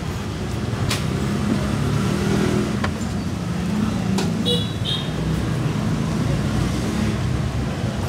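Steady rumble of street traffic beside the cart, with a few light clicks of a spoon and utensils on a stainless-steel tray.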